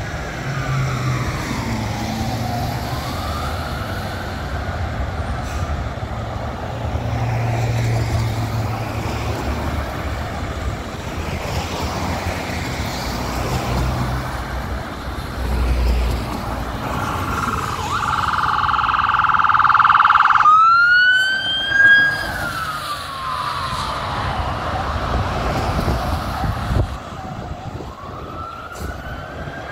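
Ambulance siren wailing, rising and falling slowly over traffic noise. About two-thirds through it gives a louder steady blast for a few seconds, then sweeps sharply back up into the wail.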